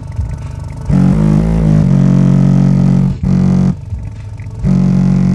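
Kicker Solo-Baric L5 square subwoofers in a car boot playing bass-heavy music: long deep bass notes, loud, broken by short gaps about a second in, at about three seconds and near four seconds.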